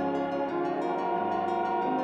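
Slow ambient background music with long held, chord-like notes that shift in pitch every second or so.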